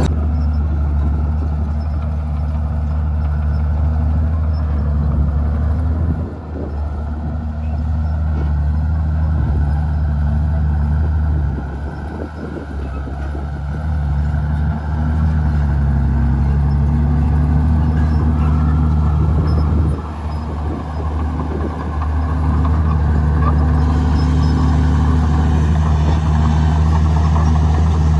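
Komatsu D51PX bulldozer's diesel engine running under load. Its loudness drops briefly three times, about 6, 12 and 20 seconds in, then comes back up.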